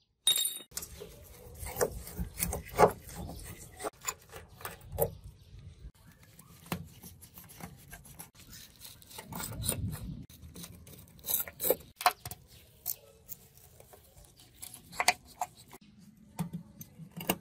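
Screwdriver and fingers working on a flat-screen TV's metal frame as screws are undone: a run of irregular small clicks, taps and scraping rubs.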